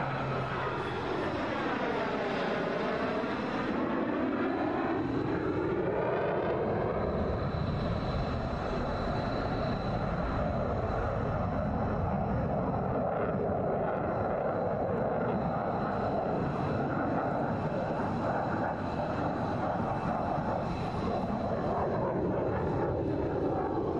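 F/A-18 fighter jet's engines passing in a display flight, with a sweeping, phasing whoosh in the first few seconds as it goes by, then steady jet noise.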